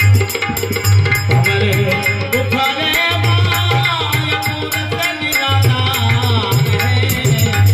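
Rajasthani folk bhajan music: a dholak beats a steady rhythm under a harmonium melody, with small hand cymbals clinking quickly throughout.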